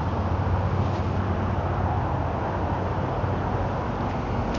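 Steady outdoor background noise: a continuous low rumble with a hiss over it, unchanging throughout.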